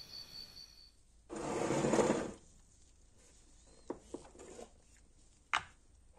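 A small tumbler cup and its screw lid handled on a wooden table. About a second in there is a rushing, rustling noise lasting about a second, then a few light clicks and a sharper knock near the end.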